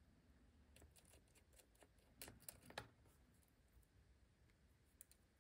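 Near silence with a few faint, short clicks about two to three seconds in, from SMA coax connectors and cable being handled at the analyzer's ports.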